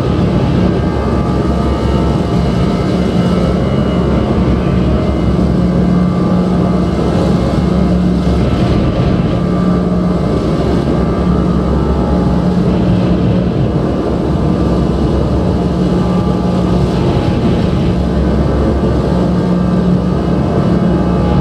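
Loud drone music: a dense, unbroken wash of sustained tones and noise, with a strong low hum that drops out and returns every few seconds.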